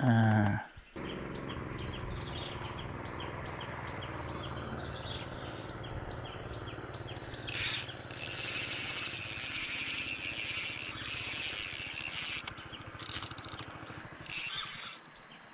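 High-pitched chirping and trilling of birds and insects, loudest from about halfway through and stopping and starting towards the end. Before that a steady low hum.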